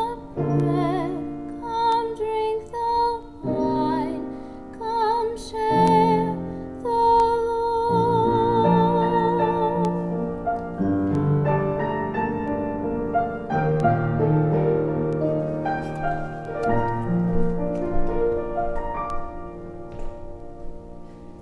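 A woman singing an offertory solo with vibrato over instrumental accompaniment. Her voice ends about seven seconds in, and the accompaniment plays on, fading out near the end.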